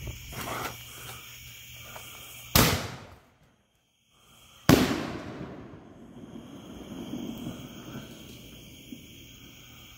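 Consumer fireworks cake firing aerial shots: two loud, sharp bangs about two seconds apart, the second echoing away over about a second, after a fainter pop near the start.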